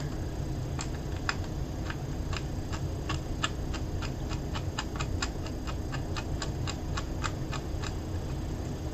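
Rapid small clicks, two or three a second, from a flathead screwdriver turning M2 screws into a number-pad PCB. The tip is mismatched to the Phillips screw heads. The clicks start about a second in and die away near the end.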